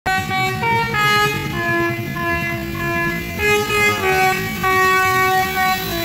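Tour bus's telolet horn, a multi-note air horn, playing a tune of held notes that change pitch every half second or so, with a low rumble underneath as the bus passes.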